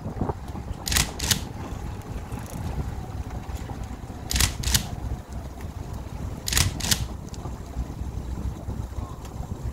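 Steady low wind rumble on the microphone aboard a fishing boat, broken three times by a pair of short, sharp, high clicks or swishes, each pair about a third of a second apart.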